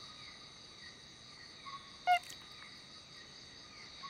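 A male tree-hole frog gives one short, pitched call about two seconds in, as he tests his call's pitch against the tree hole's resonance. Underneath runs a steady night chorus of insects and frogs.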